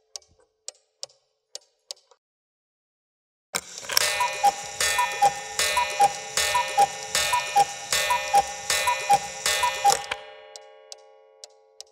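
Cuckoo clock ticking about twice a second. About three and a half seconds in, its alarm starts suddenly: a falling two-note cuckoo call repeats about eight times over a dense ringing for some six seconds, then stops and rings away, and the ticking resumes.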